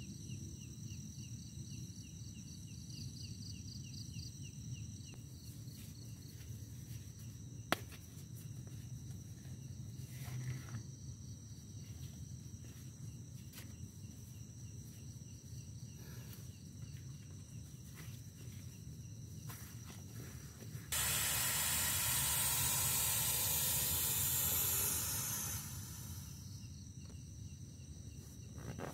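Forest insects chirping in a fast, even pulse over a low steady rumble. Late on, a loud steady hiss cuts in suddenly, lasts about four seconds and fades out.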